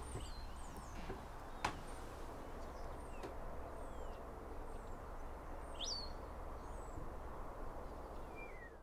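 Scattered short, high bird chirps, many of them quick sliding notes, over a steady low background rumble of outdoor ambience; a single sharp click about a second and a half in.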